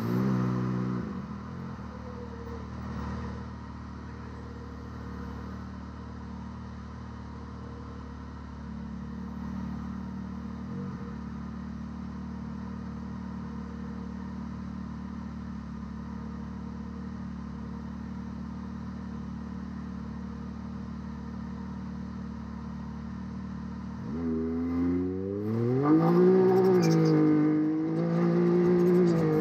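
Can-Am Maverick X3 race UTV's turbocharged three-cylinder engine, heard from inside the cab. It gives a brief rev, then idles steadily for about twenty seconds, and about four seconds from the end it revs up hard, its pitch rising and swooping as the car pulls away from the start line.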